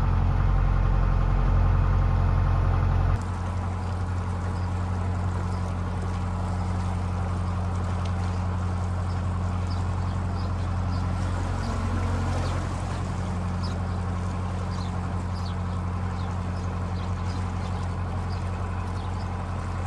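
Narrowboat's diesel engine running steadily while cruising. About three seconds in, the sound drops a little in level and changes in tone.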